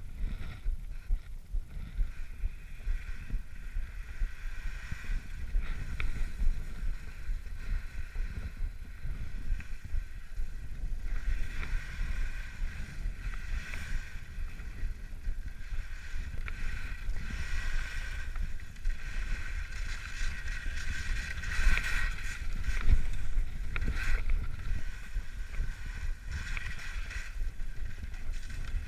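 Skis sliding and scraping over snow, a continuous hiss that grows louder in the second half, over the low rumble of wind buffeting the microphone.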